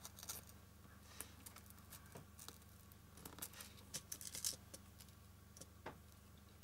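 Faint handling sounds of fingers folding and smoothing ribbon over a foam ornament ball: a scatter of small light clicks and rustles over a low steady hum.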